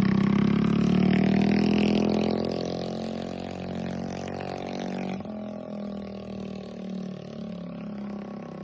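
Kymco Agility 50 scooter engine running with no exhaust fitted, so the sound is unmuffled. The engine runs at low revs, grows quieter after about two seconds, and from about halfway through it idles with an uneven, pulsing note.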